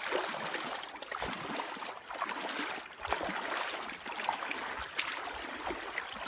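Shallow river running over rocks, a steady rushing with small irregular splashes throughout.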